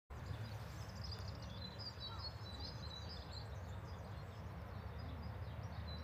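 Songbirds singing, a busy stream of high chirps and trills, over a steady low rumble.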